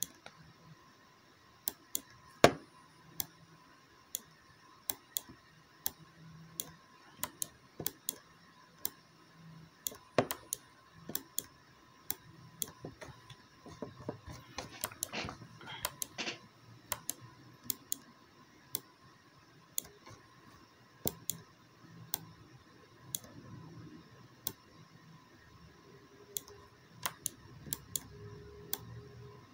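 Irregular clicks of a computer mouse and keyboard, mostly one or two a second, with one louder click a couple of seconds in.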